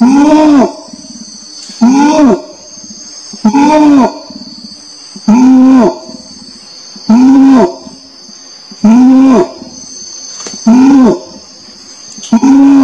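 Orangutan calling over and over, a short call rising then falling in pitch about once every 1.8 seconds, eight calls in all. A steady high insect buzz, like crickets, runs behind it.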